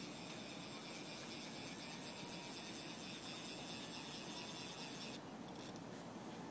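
Faint steady background noise with no distinct events; its high hiss thins out about five seconds in.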